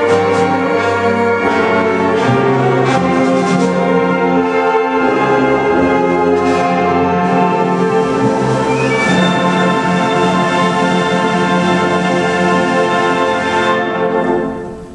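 A high school concert band of brass, flutes and percussion playing the closing bars of a piece, with percussion strokes in the first few seconds. It ends on a long held full chord that cuts off about a second before the end, leaving the hall's echo.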